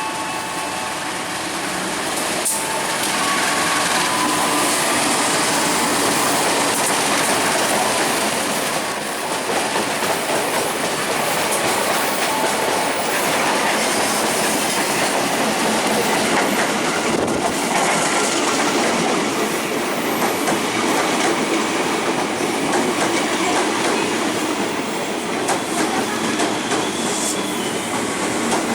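A train running past at close range: the steady noise of its wheels on the rails, with a few sharp clanks.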